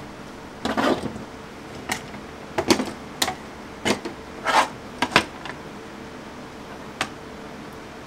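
Orange plastic quick-release bar clamps being released from an aluminium lure mould and set down on a table: a dozen or so irregular clicks and clacks, most in the first five seconds and one more about seven seconds in.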